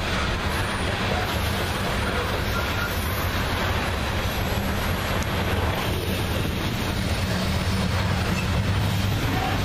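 Loaded coal gondolas of a Union Pacific coal train rolling past: the steady noise of steel wheels on the rails, with no distinct clicks.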